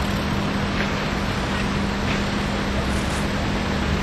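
Outdoor street noise dominated by wind rushing over the camcorder microphone, with a steady low hum running under it.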